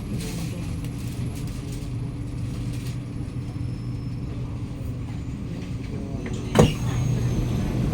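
Inside the passenger car of a Kawasaki Nippon Sharyo C751B train: a steady low hum and rumble from the train's running gear and equipment, with one sudden loud burst about two-thirds of the way through.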